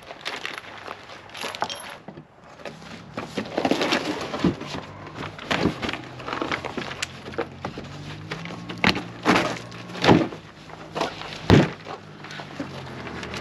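Cardboard shipping box being pulled open and its packed contents handled: a run of sharp crackles, tears and knocks, the loudest about nine, ten and eleven and a half seconds in, over a faint low steady hum.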